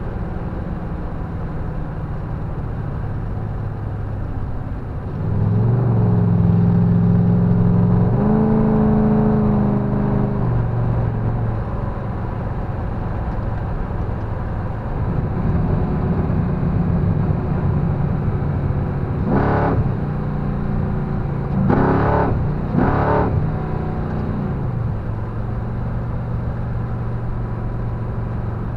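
Lincoln Town Car's V8 heard from inside the cabin through a newly fitted 2.5-inch exhaust, cruising and then opening up under hard acceleration. About five seconds in the exhaust note swells and climbs in pitch in two steps, then eases back to a steady cruise. Later it rises again, with a few brief louder swells.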